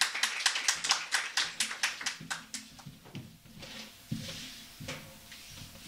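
Small audience applauding, the rapid clapping thinning out after about three seconds into a few scattered claps.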